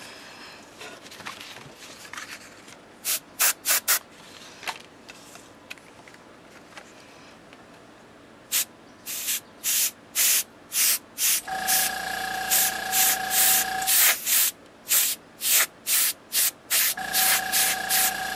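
Copic marker airbrush spraying in short bursts of air hiss, a few around three seconds in and then a quick run of about two a second from about eight seconds on. The small air compressor feeding it hums twice in the second half, each time for a couple of seconds, as it kicks on to keep up pressure.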